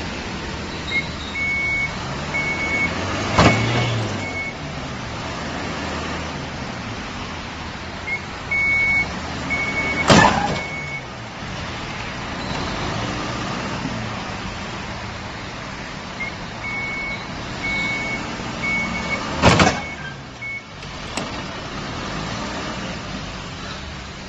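Pickup truck's engine running as it rams a parked SUV again and again: three loud impacts several seconds apart, each preceded by a run of high electronic beeping from a vehicle's warning beeper.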